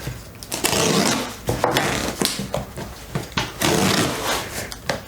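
Cardboard box being opened by hand: irregular scraping, rustling and tearing of packaging.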